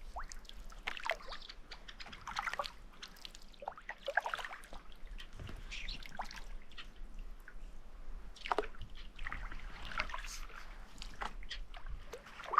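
Kayak paddle strokes: the blades dip into the lake, with irregular light splashes and water dripping off the paddle.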